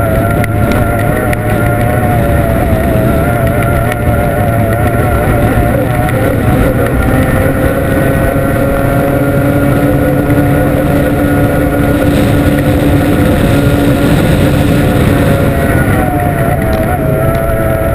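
Formula 1 tunnel race boat's outboard engine running hard, heard on board. It is a loud, steady engine note that wavers slightly, drops in pitch about six seconds in and climbs back near the end.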